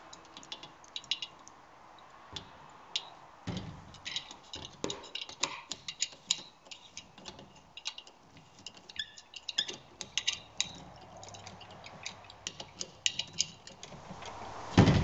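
Hand ratcheting driver clicking in short, irregular runs as the clamp bolt of the boom's lower bracket is tightened on the aluminium tube. One loud knock comes near the end.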